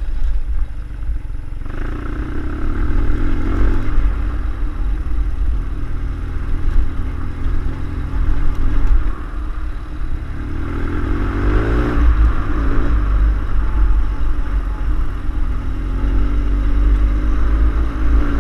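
BMW air-cooled boxer twin motorcycle engine running under way, its revs climbing about two seconds in and again about ten seconds in.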